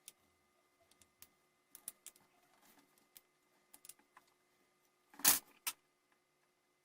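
Scattered small clicks and taps of a Dremel 3000 rotary tool's parts being handled and fitted back together, with one louder clack about five seconds in and a lighter one just after.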